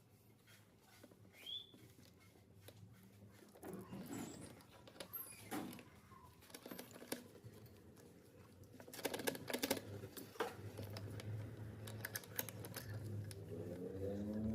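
Faint scattered clicks and short rustles, like handling noise, with a cluster of sharper clicks about two thirds of the way in. Music begins to come in near the end.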